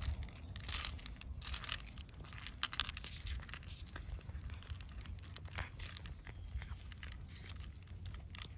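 A cat eating cat food: irregular crunching and clicking of chewing, over a low steady rumble.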